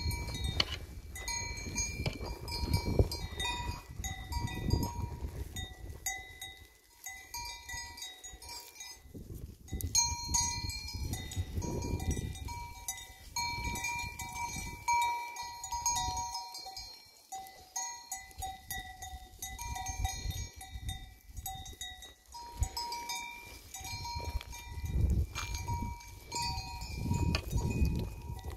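Bells worn by a herd of goats ringing irregularly as the goats walk and graze, several bells of different pitch clinking on and off, over bursts of low rumble.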